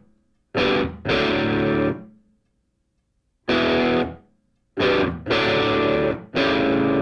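Intro music: distorted electric guitar playing stop-start chords, loud stabs and held chords broken by short silences.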